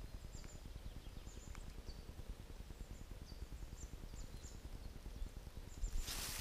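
Small birds calling: short, high, falling chirps, several every second, over a low rumble. Near the end, footsteps start crunching through dry fallen leaves.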